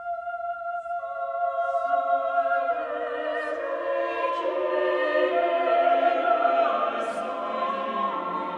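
Background music: held choir-like voices entering one after another and building into a full, swelling chord.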